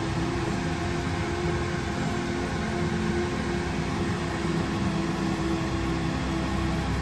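Steady whir and hum of a kitchen exhaust fan running over the stove, even in level throughout.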